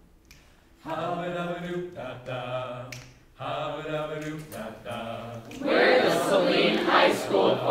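High school mixed choir singing held chords. Two sustained phrases with a short break about three seconds in, then a louder, fuller passage from about six seconds in.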